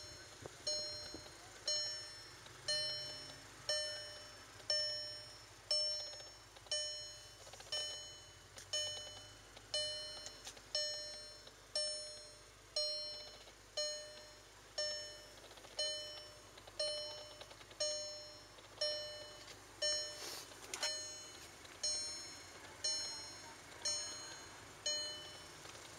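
Volkswagen Golf R's in-cabin warning chime dinging about once a second. Each ding fades quickly. It is the alert for a door left open with the ignition on.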